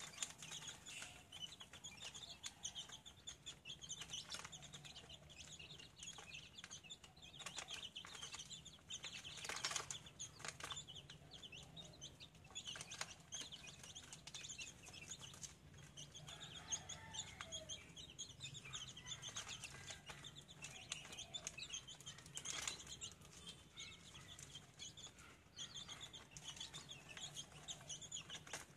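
Chickens clucking quietly amid steady high chirping, with a few brief rustles or wing flaps, the clearest about ten seconds in and again past the twenty-second mark.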